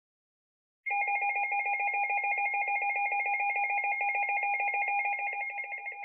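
Weather alert radio sounding its electronic alarm tone: a rapidly pulsing, ringing warble that starts suddenly about a second in and eases a little near the end.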